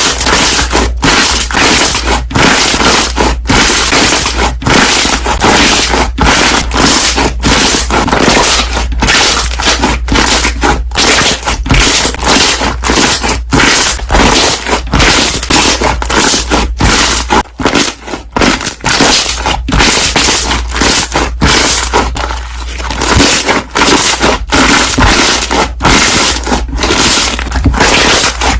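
Slime being pressed and squeezed so its trapped air bubbles pop in a loud, dense crackle, in repeated presses broken by brief pauses.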